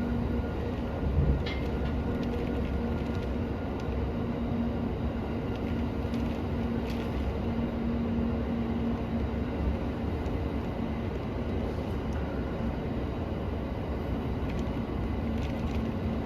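Interior running noise of a JR Musashino Line commuter train moving slowly under a speed restriction: a steady rumble of wheels on rail, with a motor hum that fades in and out.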